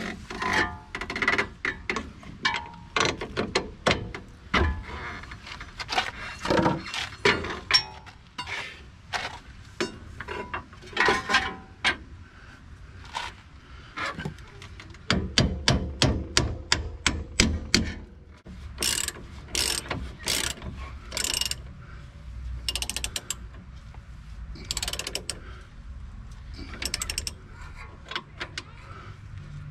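Hand socket ratchet clicking in repeated bursts of quick strokes, with metal clinks of wrenches, as suspension bolts on a pickup's front end are turned.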